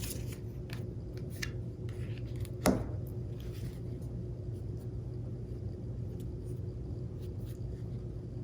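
Tarot cards being handled for a clarification draw: scattered faint clicks and a louder tap about two and a half seconds in, over a steady low room hum.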